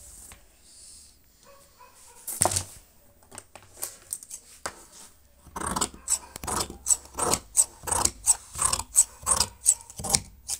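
Tailor's scissors cutting through trouser cloth along a chalk line: a steady run of crisp snips, about three a second, from about halfway through. A single sharp knock comes a couple of seconds in.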